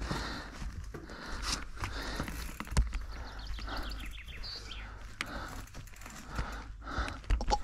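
Rustling and scuffing from a rider shifting on a rocky forest trail while handling his glove and shoe, with scattered small knocks over a steady low rumble. A short run of faint high chirps comes about three seconds in.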